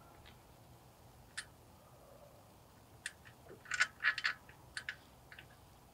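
Light clicks and clinks of small metal parts being handled at a snowblower engine's carburetor mount: a single click about a second and a half in, then a quick cluster of clicks around the four-second mark.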